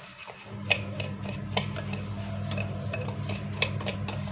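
Spoon scraping and clicking against a glass bowl while rubbing semolina with butter and oil, coconut and sugar. The clicks come irregularly, several a second. A low steady hum comes in about half a second in.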